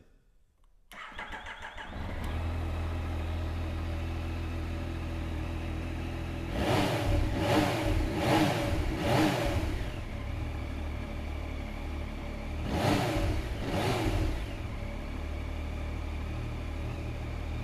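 A 2018 Yamaha Tracer 900 GT's 847 cc three-cylinder engine, on its standard exhaust, is turned over on the starter and catches after about a second. It idles steadily, is blipped four times in quick succession about five seconds later and twice more a few seconds after that, then settles back to idle.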